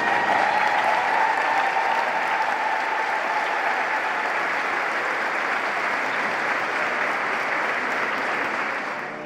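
Large crowd applauding and cheering. A long, held cheer of many voices rises over the clapping at the start and fades after about two seconds. The applause then runs on steadily and breaks off abruptly at the end.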